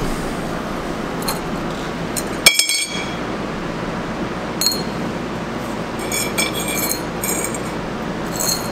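Small steel parts clinking against a steel welding table: one sharp, ringing clink about two and a half seconds in, then several lighter clinks later on, over a steady background noise.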